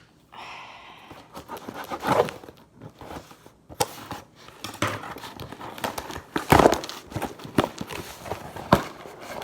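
Wrapping paper being torn and crumpled by hand, in irregular crinkling rustles with sharper rips, the loudest about two seconds in and past the middle.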